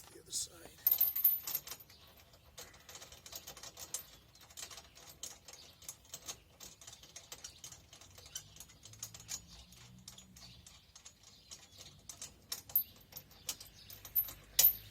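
Steel safety chain and its hooks clinking and rattling as the chain is handled and hooked up on a tow setup: irregular metallic clicks and jingles, loudest about a second in and again near the end.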